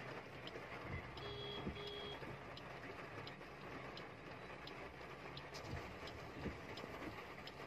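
Faint steady background noise with two short electronic beeps about a second in, and faint ticks repeating at an even pace.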